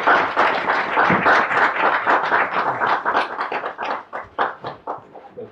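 Audience applauding at the close of a talk. The clapping is dense at first, then thins to a few scattered claps and dies away near the end.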